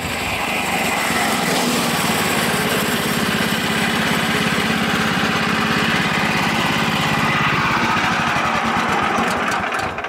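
Small gas engine of a portable bandsaw sawmill running steadily at a constant speed, swelling in over the first second and stopping suddenly near the end.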